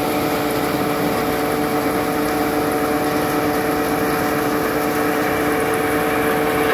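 Engine-driven threshing machine running steadily as dried Job's tears stalks are fed through it. It makes a constant hum with a few held tones and an even rush of noise over them.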